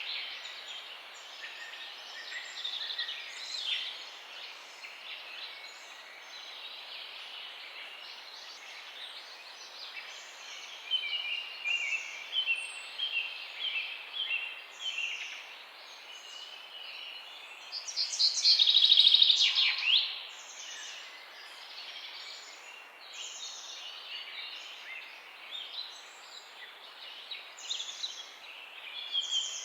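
Several songbirds chirping and singing in a morning chorus over a faint steady hiss, with a quick run of repeated notes about a third of the way in and a loud, dense trill a little past the middle.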